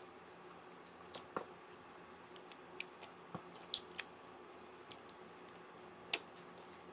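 Mouth sounds of eating an ice cream bar close to the microphone: several short smacks and clicks of the lips and tongue over a faint steady hum.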